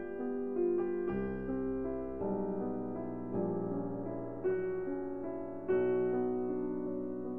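Background piano music: unhurried notes and chords, a new one struck about every second and left to fade.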